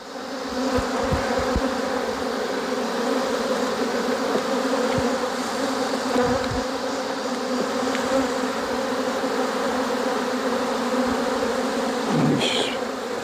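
Honey bees from a freshly opened hive, disturbed by frames being shaken, buzzing in a dense cloud: a loud, steady hum with a low tone and a higher one above it. The colony is unusually excitable and flying high.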